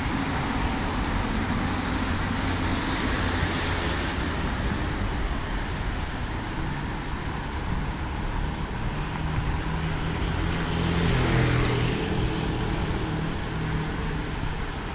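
Vehicles passing on a wet bridge roadway: tyre hiss and engine swell and fade about three seconds in and again around eleven seconds, the second pass the louder. Steady wind buffeting on the microphone.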